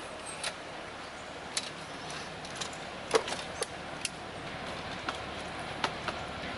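Diesel shunter approaching slowly at a distance, its engine a steady low-level running sound, with a scattering of sharp, irregular clicks.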